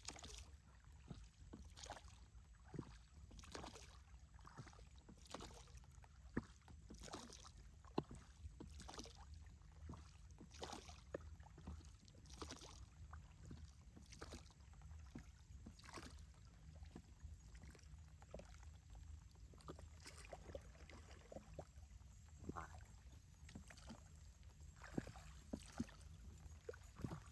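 Faint, regular paddle strokes in water, about one a second, as a small boat is paddled through the mangrove creek.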